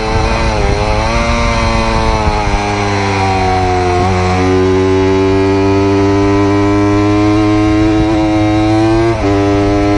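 Tuned Yamaha R25's 250 cc parallel-twin engine running at high revs under full throttle. It climbs slowly in pitch, with two upshifts, one about four seconds in and one just after nine seconds, each a sudden drop in pitch.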